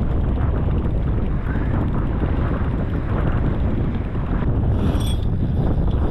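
Wind buffeting the microphone with water washing around a kayak on choppy open sea, a steady low rush. About five seconds in, a brief high-pitched squeal.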